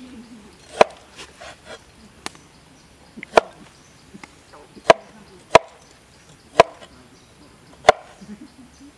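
A large cleaver chopping food on a wooden cutting board: six sharp knocks spaced unevenly over several seconds, with softer taps between them.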